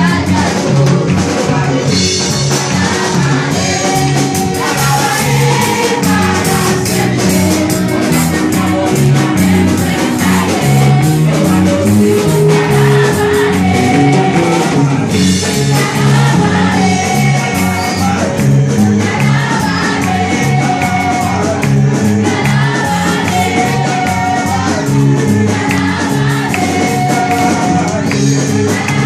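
Live gospel worship music: a church band with drum kit and bass plays a steady beat while singers and the congregation sing along.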